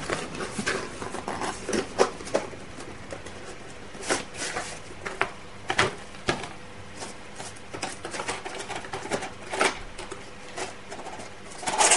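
Cardboard packaging of a retail Intel Core i5 processor being opened and its inner boxes and leaflet slid out and handled: irregular rustles, scrapes and light taps.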